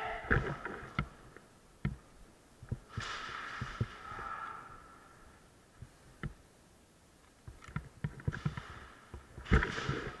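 Scattered soft knocks and thumps, with two longer hissing rustles, one about three seconds in and one near the end.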